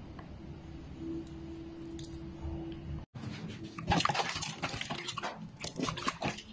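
Water sloshing and splashing as hands rub and turn raw pork ribs in a metal pot full of water. It starts suddenly about halfway through, after a quieter stretch with a faint steady hum.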